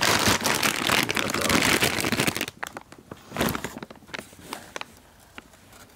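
Plastic bag and crumpled brown packing paper rustling and crinkling as a bagged turbocharger is packed back into its box: dense rustling for the first two and a half seconds, then a few scattered crackles with one short burst about three and a half seconds in, dying down near the end.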